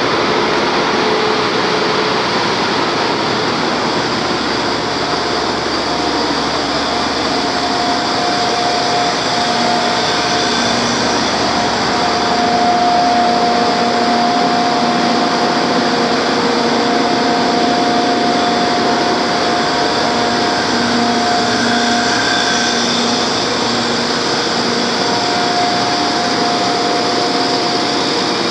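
Loud, steady din of a bulk carrier's engine room with its machinery running, with a few steady whining tones that fade in and out over the noise.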